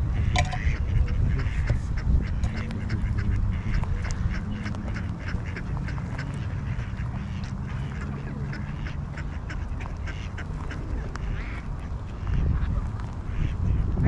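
Mallard ducks quacking now and then, over many short crunching steps on bark mulch and a steady low rumble.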